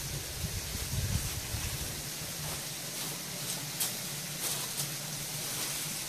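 A steady hiss with an uneven low rumble, and a few faint short taps around the middle.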